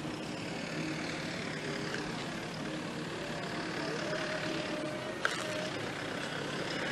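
Steady outdoor background noise with faint distant music, and a single sharp click a little over five seconds in.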